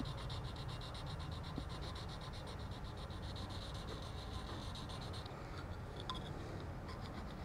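Steel cabinet scraper blade rubbed on a diamond sharpening plate, a faint, quick, even rasping that stops about five seconds in, followed by a light click. The corner of the blade is being rounded over so that it won't dig into the wood.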